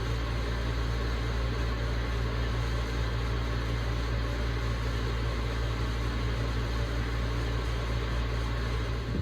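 A machine running steadily indoors, a low hum under an even hiss, unchanging throughout.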